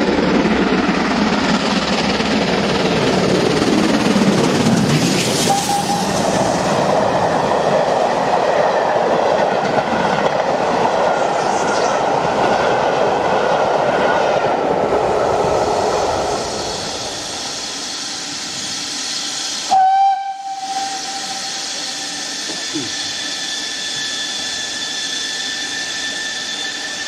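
A steam locomotive and its train pass at speed with a loud, rushing, rumbling noise for about the first sixteen seconds. Then a short, loud steam whistle blast sounds about twenty seconds in, followed by a steady hiss of escaping steam.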